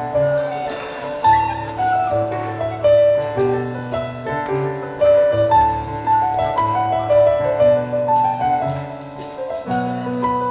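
A live contra dance band playing a tune with a steady beat: a melody line over a running bass.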